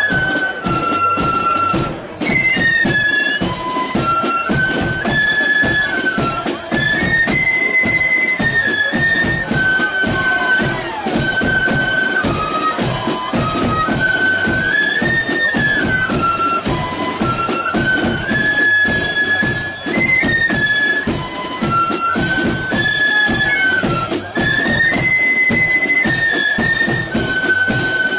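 A marching flute band playing a tune: many flutes in unison carry a stepping melody over steady beating of a bass drum and side drums.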